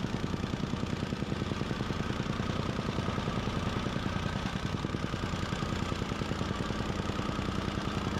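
Engine of heavy construction equipment running steadily with a fast, even pulse, during demolition of an old concrete driveway.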